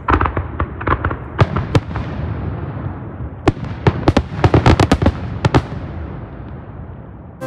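Aerial firework shells bursting: a string of sharp bangs over a rolling rumble, with a dense volley early on and another about three and a half seconds in, the rumble dying away near the end.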